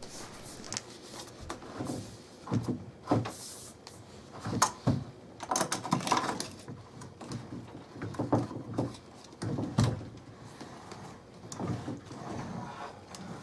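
Irregular knocks, clicks and short scrapes of a Panasonic MJB907W plastic sliding-door wheel unit being worked into the slot at the bottom of the door while the door is jimmied up off its floor rail.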